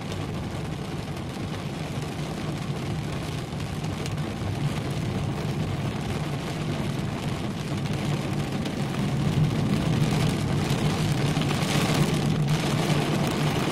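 Heavy rain heard from inside a car: a steady hiss of rain on the roof and windscreen and of tyres on the flooded road, over a low steady engine hum. The hiss grows louder about two-thirds of the way through.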